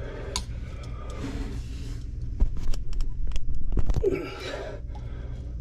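Clicks and knocks of PVC drain pipe and fittings being handled and pushed together in a sink cabinet, with a short strained breath about four seconds in, over a steady low hum.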